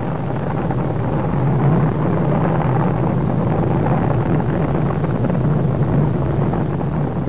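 Steady rumbling roar of the Energia rocket's engines carrying the Buran shuttle away after lift-off, an even, unbroken noise that holds its level throughout.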